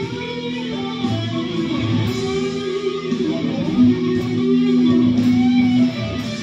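Guitar playing, plucked and strummed chords with notes held out, the loudest held note near the end.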